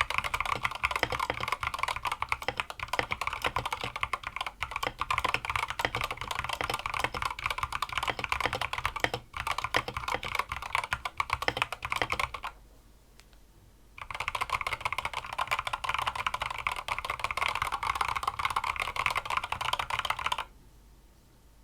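Fast continuous typing on a mechanical keyboard with stock, unlubricated Gateron Ink Black linear switches and PBT XDA keycaps: a dense run of key clacks. It stops for about a second and a half around the middle, then resumes and stops shortly before the end.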